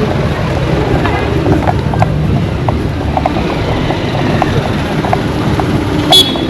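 Wind buffeting the microphone in a steady low rumble, over outdoor street noise scattered with small clicks and knocks. A brief shrill, high-pitched sound cuts in about six seconds in.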